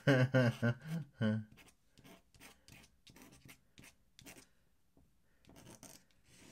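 A brief murmur of voice in the first second and a half, then quick, light scratchy strokes of an ink-laden tool on drawing paper, about three or four a second, with a softer rubbing scratch near the end.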